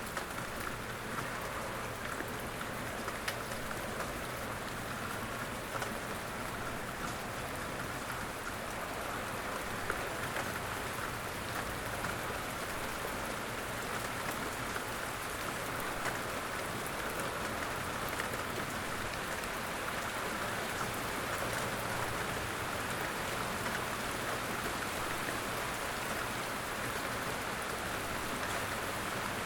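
Steady outdoor rain falling and pattering on surfaces, with a constant hiss and scattered individual drop hits.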